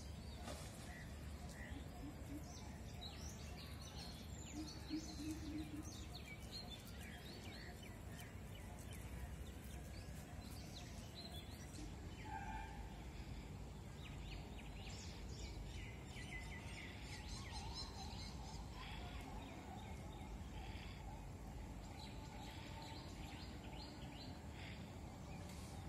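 Birds chirping on and off over a steady, low outdoor background noise.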